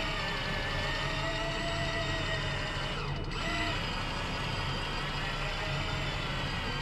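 Banax Kaigen electric fishing reel's motor running steadily, winding in line from a deep drop with a fish on, a whine of several steady tones over a low engine hum.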